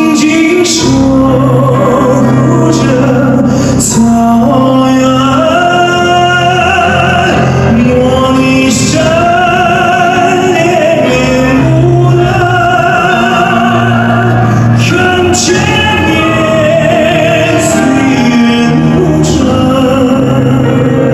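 A male singer's voice singing a slow, long-held melody with vibrato over live band accompaniment. It is recorded from the audience, and the sound is not very clear.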